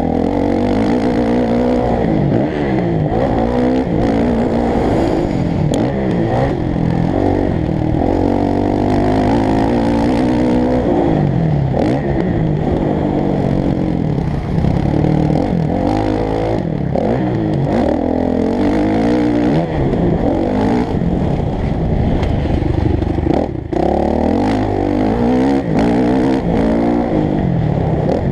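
Motocross bike engine heard close from an onboard GoPro, revving up and falling away over and over as the throttle is worked through the track's sections. The engine briefly drops off once, late on.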